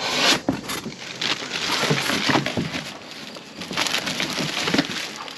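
Cardboard box being opened by hand and a plastic-wrapped seat pulled out: cardboard flaps scraping and the plastic wrap crinkling in irregular rustles.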